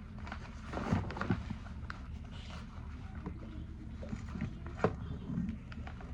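Scattered light clicks and knocks of small items being handled, with a clearer knock about a second in and another near five seconds, over a steady low hum.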